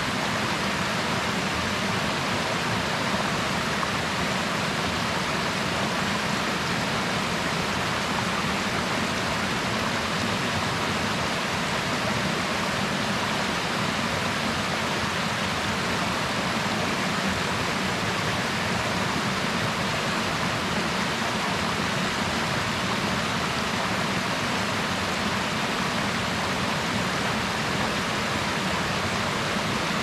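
Mountain river flowing: a steady, unbroken sound of running water.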